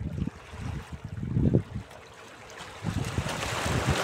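Small sea waves lapping and sloshing against shoreline rocks, with a larger wave washing over them in a rush of foam near the end.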